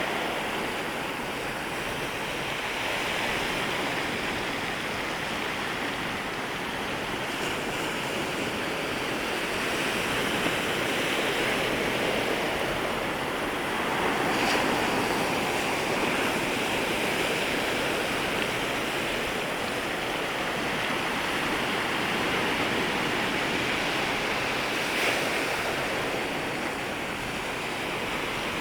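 Sea waves washing in at the water's edge: a continuous surf of overlapping, uneven waves that swells and eases every few seconds.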